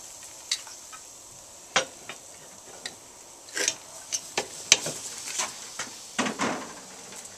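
Metal tongs and a utensil clicking and knocking against the grill rack of a cast iron Dutch oven as racks of baby back ribs are arranged. There are a dozen or so scattered light clicks, the sharpest about halfway through, over a faint steady sizzle of soaked cherry wood chips smoldering on charcoal briquettes beneath.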